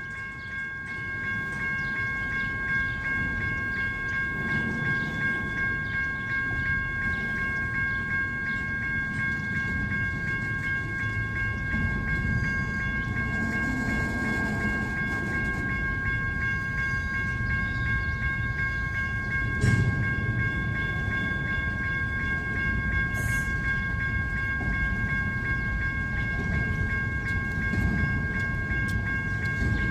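Freight cars of an intermodal train rolling past with a steady low rumble and an occasional click, and a steady high-pitched ringing tone running over it.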